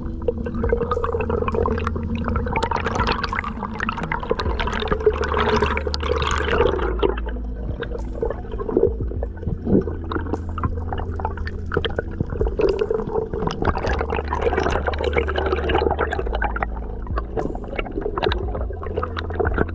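Underwater sound picked up by an action camera in its housing: a steady wash of water noise and a dense crackle of sharp clicks over a constant low hum.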